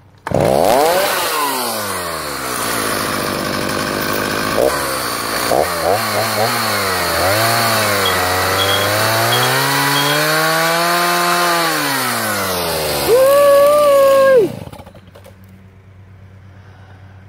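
Stihl Farm Boss two-stroke chainsaw running, its engine speed falling and rising several times as the throttle is worked. It holds a high rev for a moment near the end, then cuts off suddenly.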